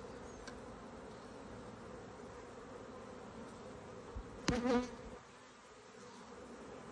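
Honey bees humming steadily from an opened hive, with a knock and a brief louder buzz about four and a half seconds in.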